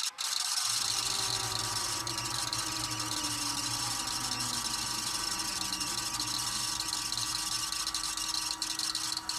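VCR tape transport winding a VHS tape at high speed: a steady motor hum and whir with a low whine that slowly falls in pitch. It starts with a mechanical click, and the motor spins up about a second in.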